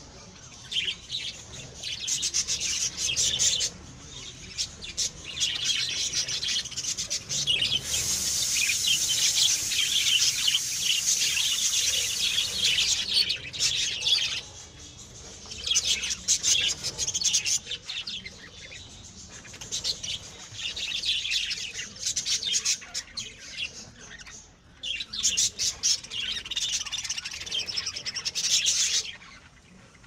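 Caged budgerigars and cockatiels chirping and chattering in dense, overlapping bursts, with short lulls a few times.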